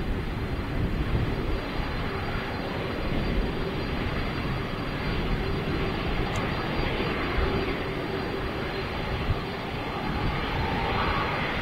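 Jet airliner engines running steadily as the plane passes near the runway. A higher band of engine noise strengthens near the end.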